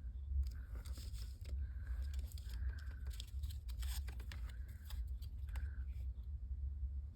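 Paper and cardstock pieces being handled on a craft desk: scattered rustles, taps and a few short scrapes, over a steady low hum.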